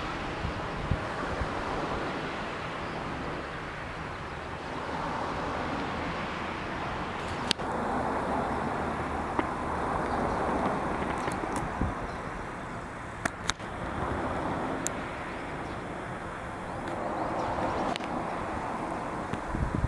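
Road traffic: several cars passing one after another, each rising and fading as it goes by, with a few short sharp clicks in between.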